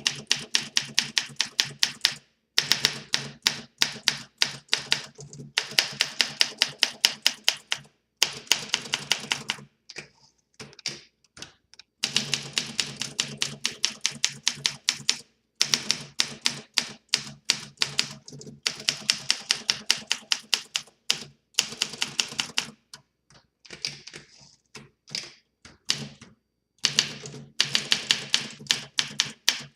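A 1960 Olympia SM4 manual portable typewriter, freshly restored with a new platen, being typed on. Runs of rapid keystrokes, several a second, are broken by short pauses, and the typing goes slower and sparser twice.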